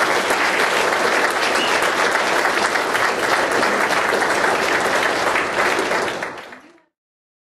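A large audience applauding, many hands clapping together in a dense, steady patter. It fades out quickly after about six seconds.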